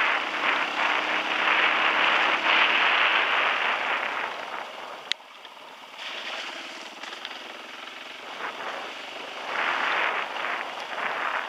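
Dirt bike ridden along a wet, puddled dirt track: a loud rush of wind and water spray from the tyres over a faint engine note. The rush drops off abruptly after a sharp click about five seconds in and swells again near the end.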